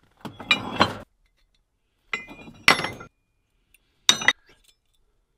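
Rusty steel scrap offcuts clinking and clanking against each other as pieces in a pile are shifted and lifted out by hand, with short ringing metal tones. The clinks come in three bunches about two seconds apart, the last one brief.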